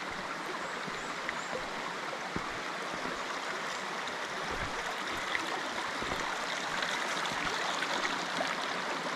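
Creek water running steadily over rocks, a continuous rush with a few faint ticks.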